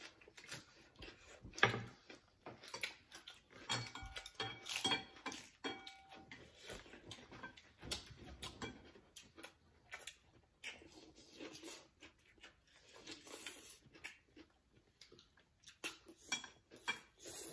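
Chopsticks clicking and clinking against ceramic bowls and plates during a meal, in many short, irregular taps; a few clinks ring on briefly about four to six seconds in.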